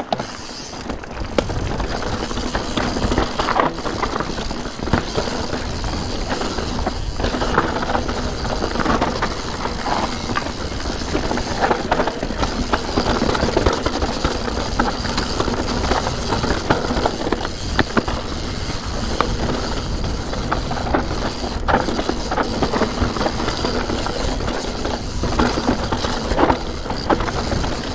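Santa Cruz Nomad 4 enduro mountain bike rolling fast down a rough dirt trail over leaves, roots and stones: steady tyre noise with frequent knocks, clicks and rattles from the chain, suspension and frame.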